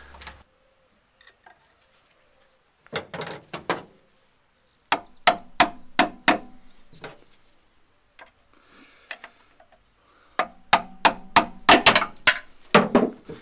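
Hammer blows on the diesel injection pump's timing-belt pulley, knocking it loose from its shaft: sharp ringing metal knocks in small groups, with a quicker run of blows near the end.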